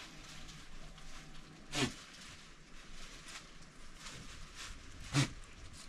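A young goat bleating twice, two short falling calls a few seconds apart.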